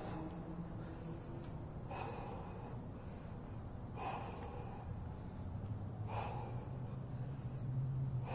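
A man breathing hard while he recovers between sets of push-ups and squats, with a heavy breath about every two seconds, over a low steady hum.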